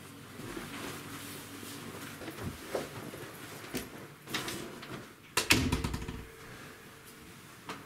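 Scattered knocks and rustling as coats are handled in a small room, then an interior door shut with a single thud about five and a half seconds in, the loudest sound.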